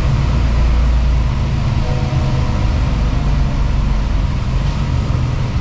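Steady drone of a Mercedes-Benz Actros tractor unit's engine with tyre noise from the wet road, heard from inside the cab while driving.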